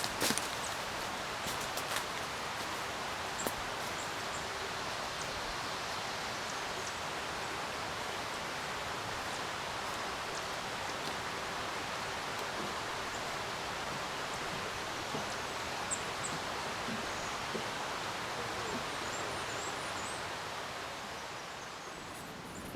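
Steady, even outdoor rushing noise that fades somewhat near the end, with a few faint high bird chirps in the second half.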